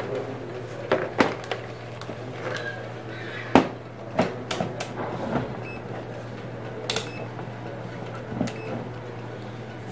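Scattered clicks and knocks of a digital multimeter and its test leads being handled and set down on a TV's plastic back cover, over a steady low hum; the sharpest knock comes about three and a half seconds in.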